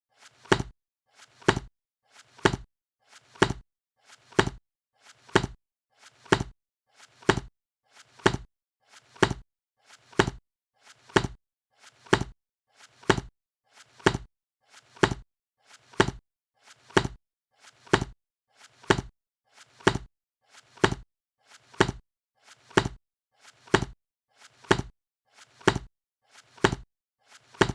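A book being closed over and over, about once a second: each time a faint touch just before a sharp clap of the covers.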